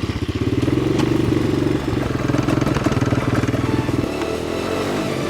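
ATV engine catching just before and running strongly, then dropping to a lower, steadier note about four seconds in.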